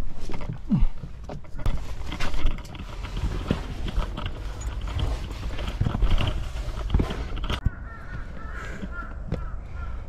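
Irregular scuffs and knocks over a low rumble of wind and camera handling as a hiker clambers down steep granite rock gripping steel handrails, loudest in the first couple of seconds.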